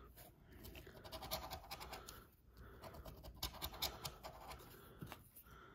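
Faint rapid scraping of a plastic scratcher rubbing the coating off a lottery scratch-off ticket, in short runs with brief pauses.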